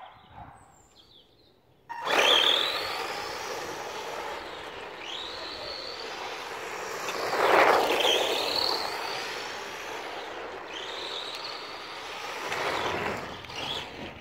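Electric RC truck with a brushed 27-turn motor pulling away hard about two seconds in, its motor and gears whining up in pitch again and again as it accelerates, over tyres crunching on gritty concrete. It is loudest about halfway through.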